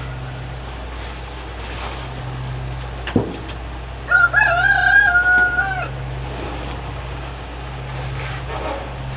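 A rooster crows once, a single stepped call lasting about a second and a half. It comes shortly after one sharp knock.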